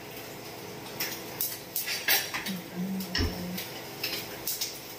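Sharp, irregular metallic clicks and clatter from hands working the control knobs and switches of an opened-up gas range, about half a dozen of them, with a short low hum and a dull thump about three seconds in.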